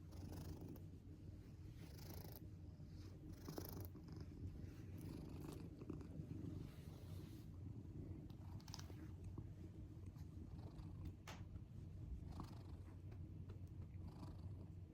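A domestic cat snoring in its sleep, an unusual, almost human-child-like snore. It is a faint, steady low rumble with a breathy swell every one to two seconds.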